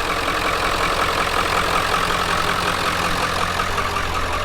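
1997 Ford F-250's 7.3-litre Powerstroke turbo-diesel V8 idling steadily, its exhaust pretty quiet.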